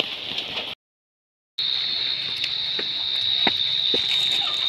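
Insects trilling outdoors: a steady high-pitched tone, with a few faint clicks in the second half. The sound cuts out completely for about a second, shortly after the start.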